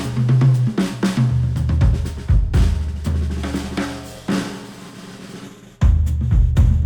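Music with a driving drum kit beat over heavy bass, played through headphones and picked up by microphones. Near the end it drops to a thinner, quieter passage for about a second and a half, then the full beat comes back in suddenly.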